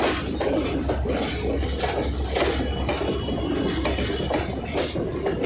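Railway passenger coaches rolling past, their steel wheels running over the rail with a steady low rumble and repeated metallic clicks and clanks.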